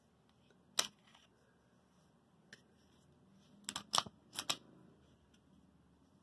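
Sharp metallic clicks from a SIG Sauer P365 pistol being handled: one loud click about a second in, then a quick run of about five clicks around four seconds in.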